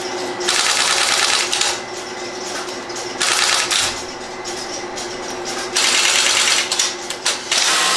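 Stromberg-Carlson XY switch working as a line finder, stepping in four short bursts of rapid clattering clicks as it hunts for the calling line and cuts into the bank.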